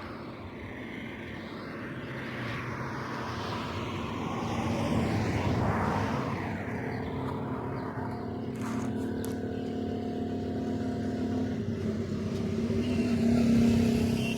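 Road traffic: a vehicle passes, swelling and fading, then an engine runs with a steady hum.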